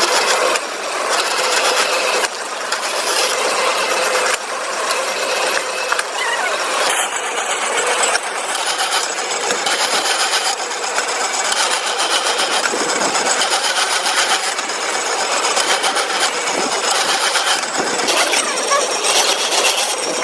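Industrial machinery running in a cable recycling plant: a dense, loud mechanical clatter and rasp, with the mix changing abruptly every few seconds.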